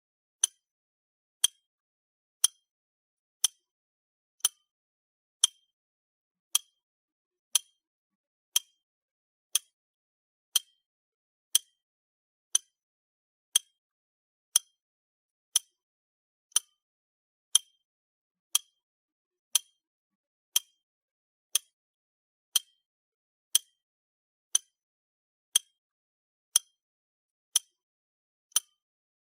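Clock ticking, one short, sharp tick each second, evenly spaced, with silence between the ticks.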